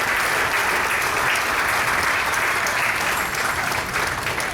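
Audience applauding with dense, steady clapping that begins to die down near the end.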